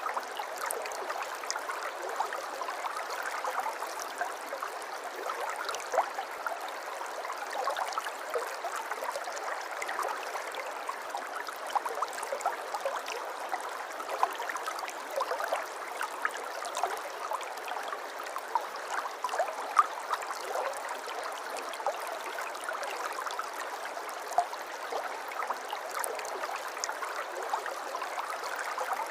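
Shallow river or stream flowing steadily, babbling and gurgling with many small splashes, the sound sitting in the middle range with almost no low rumble.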